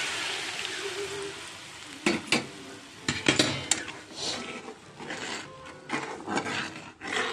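Hot water poured onto fried spice paste sizzles in the pan and fades over the first couple of seconds. From about two seconds in, a steel spatula scrapes and clinks against the pan as the thinned curry gravy is stirred.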